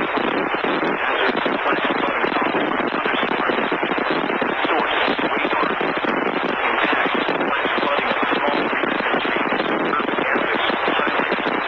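Steady, loud radio static: a dense hiss with fine crackling, cut off above the upper mids as through a narrow broadcast channel, with no tones or clear speech in it.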